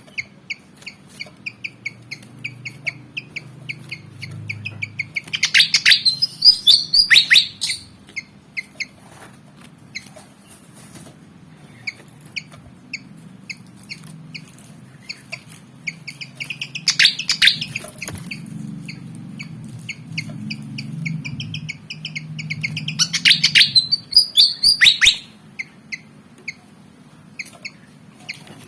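Fantail (kipasan) calling: a steady run of short high chips, broken three times by loud, rapid bursts of song.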